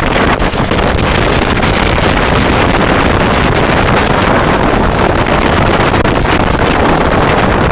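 Strong wind blowing across the microphone: loud, steady rumbling noise with constant buffeting.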